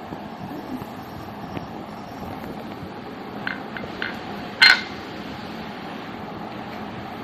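Steady background hum with a few light clicks, and one sharp, ringing clink a little past halfway.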